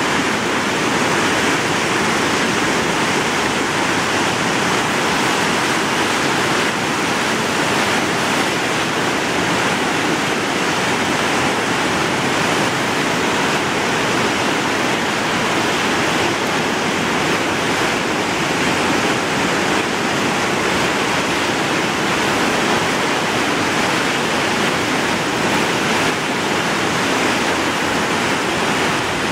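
River in flood: fast, muddy floodwater rushing and churning, a loud, steady roar of water.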